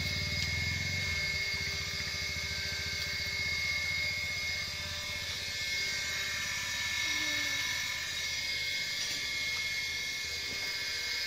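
Small electric water pump running, a steady motor hum with a high, even whine; the low hum eases a little about a second in.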